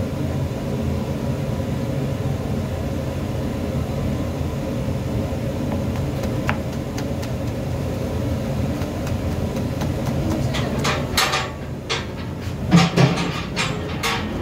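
A cleaver chopping sliced green chillies on a plastic cutting board, a run of sharp knocks clustered in the last few seconds, the loudest about thirteen seconds in. Under it a steady low rumble runs throughout.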